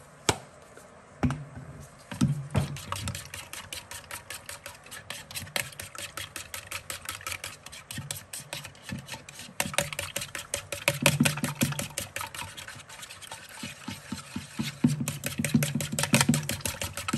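Raw eggs being beaten with a wooden spatula in a plastic bowl: quick, repeated clicking strokes against the bowl, speeding up about ten seconds in and again near the end. A couple of sharp knocks come first, as the bowl and spatula are handled.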